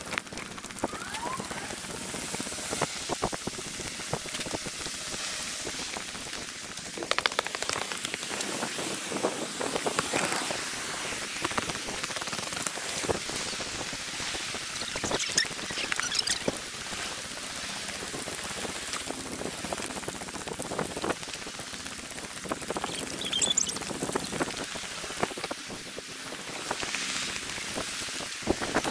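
Sped-up outdoor sound of a walk on a seafront promenade, heard as a dense, steady crackle of many small clicks and hiss. A few short high chirps come through around the middle and again later on.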